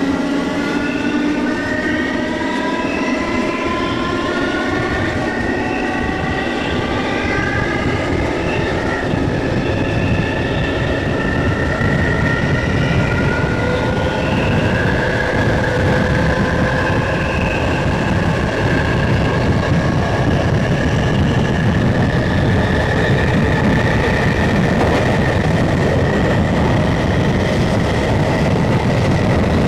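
SNCB AM80 electric multiple unit's traction motors whining as the train accelerates, several tones rising slowly in pitch, over the rising rumble of the train running on the rails.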